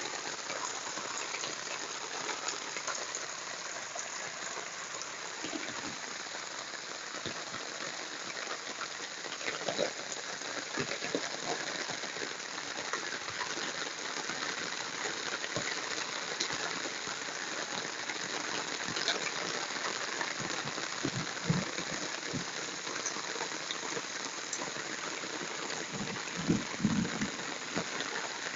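Steady hiss of heavy rain, with scattered sharp taps of drops and a few brief low thumps near the end.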